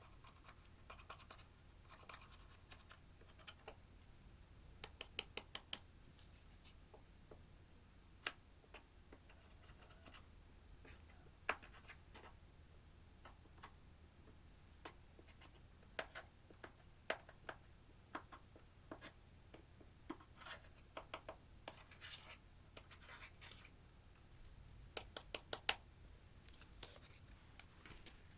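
Clear slime being kneaded and stretched with eyeshadow mixed in, giving soft scratchy crackles and scattered sharp sticky clicks and pops, some in quick runs of four or five.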